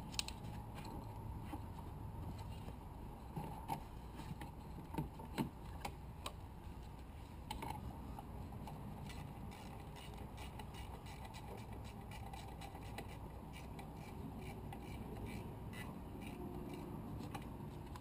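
Scattered light clicks and taps of hand tools and parts being handled in a car's engine bay, over a steady low hum.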